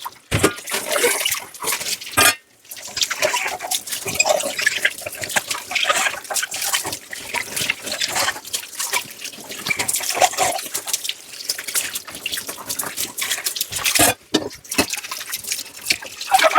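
Tap water running and splashing over dishes in a kitchen sink as they are washed, with many small sharp knocks and clinks. It breaks off briefly twice, about two seconds in and near the end.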